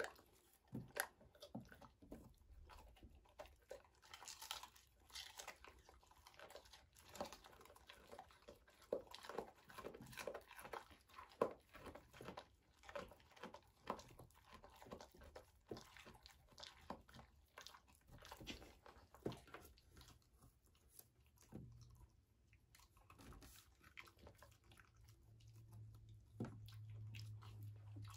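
German Shepherd dogs chewing and crunching small pieces of food, with many irregular crunches and mouth clicks that thin out in the last third. A low steady hum comes in near the end.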